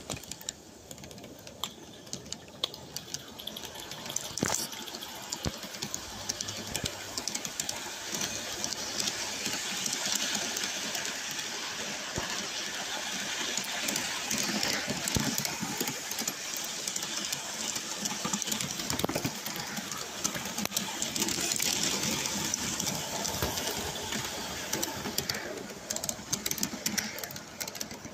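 Garden-scale live-steam train running along its track, heard from aboard a carriage: a steady rushing hiss with a rapid irregular clicking of wheels over the rails, quieter for the first few seconds and fuller after that.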